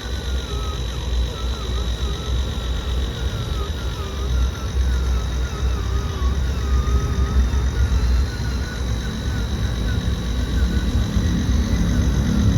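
Small electric motors of RC construction models running: a steady high whine over a low rumble, with a wavering tone that rises and falls.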